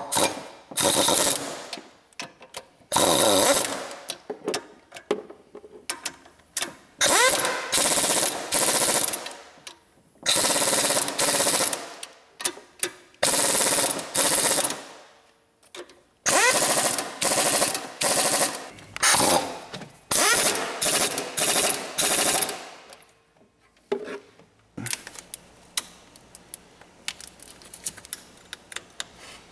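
Impact wrench running the engine mount bolts in and hammering them tight in a series of bursts of a second or two each, some with a rising whine as the motor spins up. Near the end only a few light clicks, as a plastic wiring-harness retainer is snapped back into place by hand.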